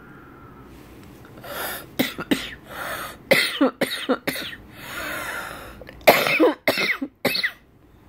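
A person coughing in a string of about a dozen short coughs in two fits, wheezing, with a drawn-out wheezy breath between the fits; it stops abruptly near the end. The cough of bronchitis and asthma.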